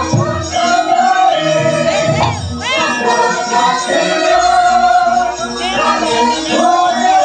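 Javanese gamelan music with a sung vocal line: long held and sliding sung notes over a steady pulse from the ensemble, accompanying a wayang kulit shadow-puppet play.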